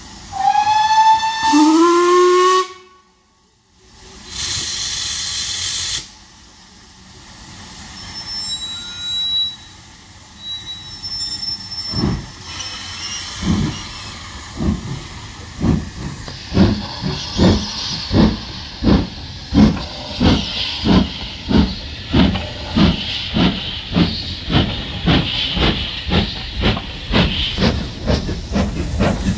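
Ivatt Class 2MT 2-6-0 steam locomotive No. 46447 sounds its whistle for about two and a half seconds, the pitch rising as it opens, followed by a burst of steam hiss. From about twelve seconds in, its exhaust beats start, slow at first and quickening to about two a second, with steam hissing from the cylinders as it pulls away.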